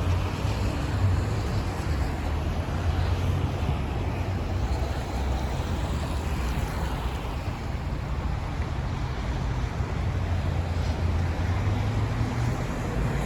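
Steady rush of heavy highway traffic on wet pavement, with a low wind rumble on the microphone.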